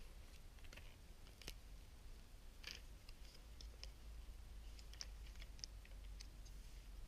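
Faint, irregular small clicks and scratches of objects being handled by hand, about a dozen short ticks spread over several seconds, the sharpest about a second and a half in.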